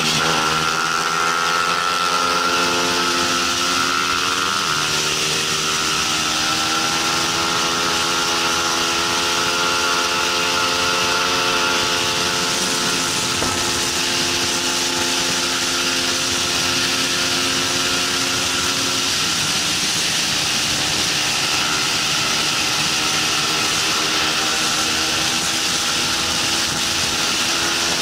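Bajaj Pulsar 200 NS single-cylinder engine running hard at racing revs, heard from onboard: the pitch climbs, then steps down at an upshift about five seconds in and again near nineteen seconds. Heavy wind rush runs over it.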